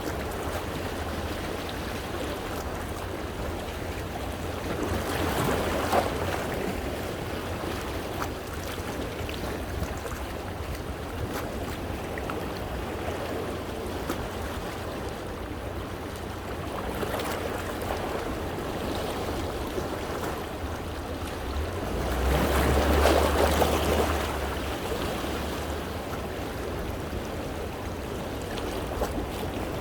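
Sea waves washing against coastal rocks, with water sloshing and running between them. The surf swells three times, the loudest about two-thirds of the way through.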